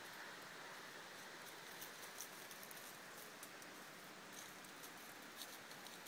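Faint, scattered crackles and rustles of dry leaf litter over a steady background hiss.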